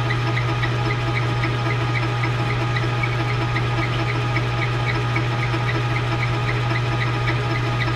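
Small lathe running steadily with a constant motor hum and a regular light tick about four or five times a second, while a hole is drilled into a nylon knob blank.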